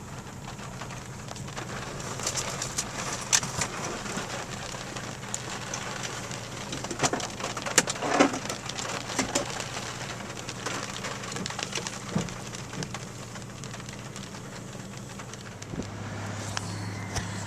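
Rain falling steadily in a severe thunderstorm, with many scattered sharp drips and taps. A low steady hum comes back near the end.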